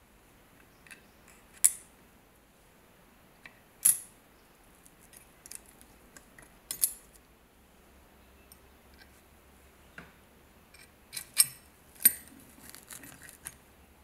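Small steel parts of an old Swiss Army knife clinking and clicking as they are handled and fitted onto the pins of the liner. It is a scattering of sharp metallic clicks, a few of them loud, with faint ticks between them and a quick cluster near the end.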